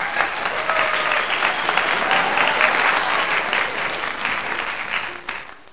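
Recorded crowd applause, a dense, steady clatter of many hands clapping, tailing off and cutting out near the end.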